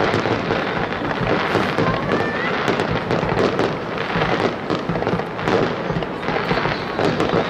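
Aerial fireworks barrage: shells bursting in quick succession, with a dense, continuous crackle of many small sharp pops.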